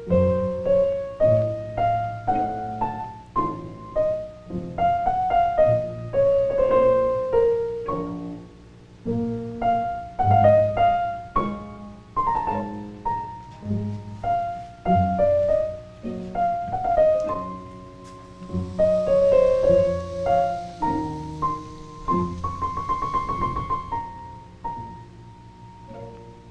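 Background piano music: a gentle melody of single notes over low accompanying chords, with a quick trill a little before the end.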